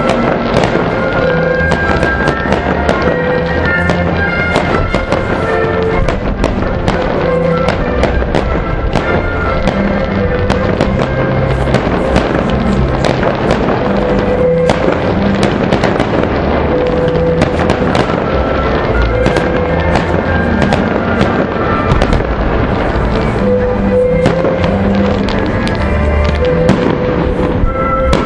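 Fireworks going off in a continuous stream of bangs and crackles, over music with long held notes.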